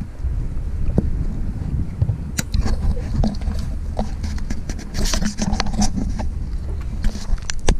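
Scattered clicks, taps and scrapes of hands working plastic wiring connectors and harness, over a steady low rumble.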